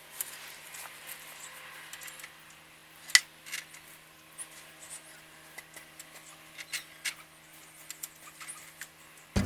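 Scattered light clicks and taps, the loudest about three seconds in, over a faint steady hum.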